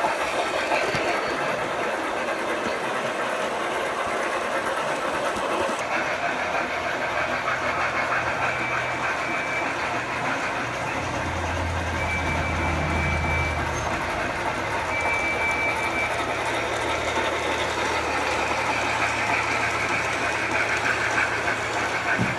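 Large-scale model trains running on track: a steady rattle of wheels and gearing, with a low motor hum that comes in about a quarter of the way through and swells around the middle.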